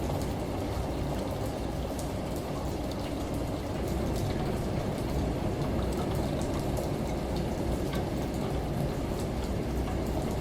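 Steady rush of falling water with scattered drop ticks, over a low washing-machine rumble, a layered rain, shower and washing-machine ambience. It grows slightly louder about four seconds in.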